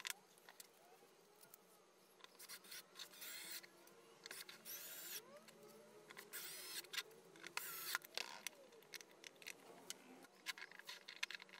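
Cordless drill/driver running in four short bursts of about half a second each, driving small screws into a 3D-printed plastic speaker enclosure. Light clicks and knocks of handling the parts on a wooden bench come between the bursts.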